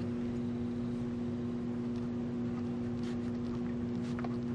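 Steady hum made of a few held, even tones over a low noise floor, with faint marker strokes on paper near the end.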